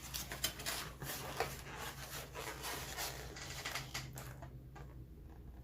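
Close-up eating sounds: irregular crackly chewing and crunching of food for about four seconds, then dying down.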